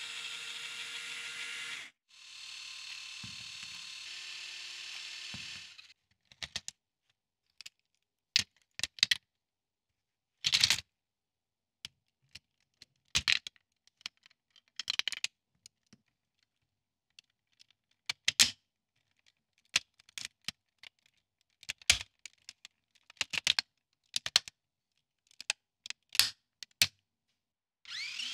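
Electric motor of a Lego Technic launcher running steadily for about six seconds, with a brief stop near two seconds. After that come irregular sharp clicks and snaps of Lego Technic parts being pressed together by hand.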